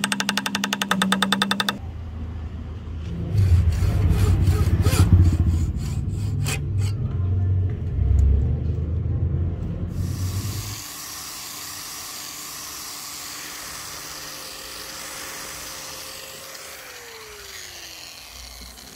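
A quick run of light hammer taps on a brass cartridge-case inlay set in an axe's wooden wedge, then several seconds of rough rubbing and grinding on the wood. From about ten seconds in an electric angle grinder runs steadily and winds down near the end, its pitch falling.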